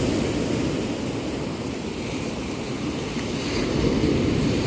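Steady rushing noise with no distinct events or tones, strongest in the low range.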